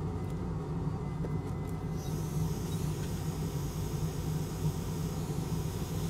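Hot air rework station blowing onto the board: a steady air hiss comes in about two seconds in, over a steady low hum, as the LCD FPC connector is heated to be desoldered.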